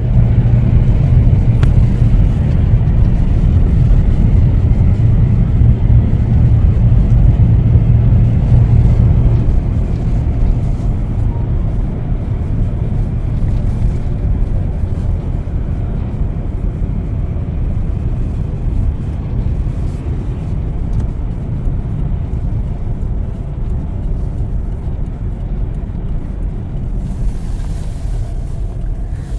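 Road and engine noise inside a moving car: a steady low rumble, louder for the first ten seconds or so, then easing slightly.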